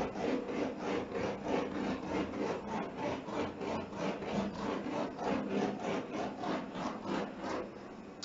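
Handheld gas torch burning with a raspy, pulsing hiss, about three or four pulses a second.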